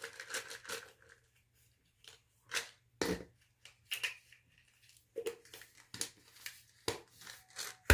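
Plastic supplement bottles and capsules being handled: caps opened and closed and pills counted out into a cup, giving a string of short, irregular clicks and taps.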